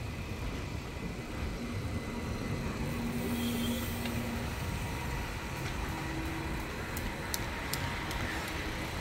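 Steady road traffic noise heard from a moving road bike, with a few faint clicks about seven seconds in.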